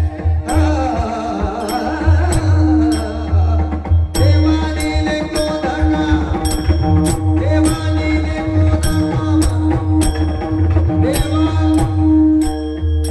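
Devotional bhajan music. A wavering melodic line runs over a steady drone, with deep drum beats and a sharp metallic click keeping time a little over a second apart.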